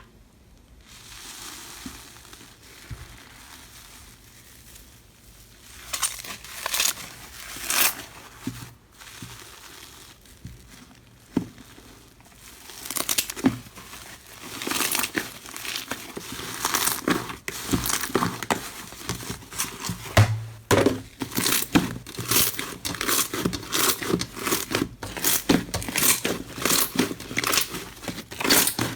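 Slime being squeezed and worked by hand, giving irregular crackling and popping that starts sparse and becomes dense and steady about halfway through.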